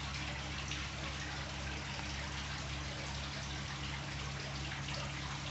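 Aquarium water trickling and bubbling steadily over a low, steady hum.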